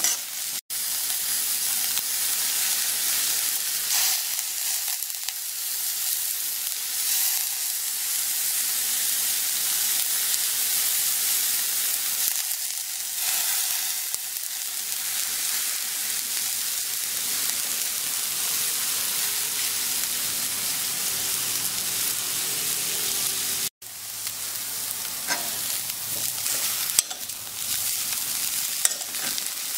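Shredded chicken and diced vegetables sizzling in hot oil in a wok, with a metal spoon scraping and stirring against the pan. The sizzle cuts out for an instant twice.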